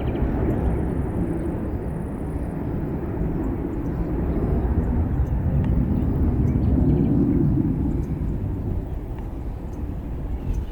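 Jet noise from a departing Airbus A321's IAE V2500 turbofans: a steady low rumble that swells slightly midway, then eases off near the end as the aircraft draws away.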